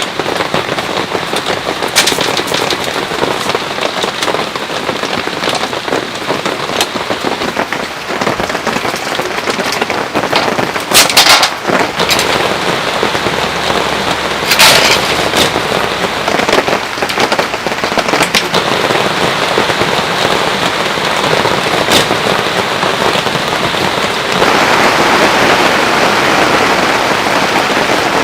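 Heavy rain falling steadily, broken by a few sharp, loud cracks of heavy drops striking a hard surface; the downpour grows louder near the end.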